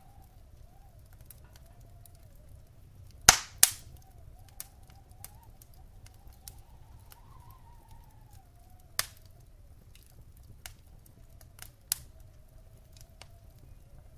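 Wood fire in a fireplace crackling: two loud sharp pops close together about three seconds in, another near nine seconds and one near twelve, with smaller snaps scattered between, over a low steady rumble. A faint wavering whistle runs underneath.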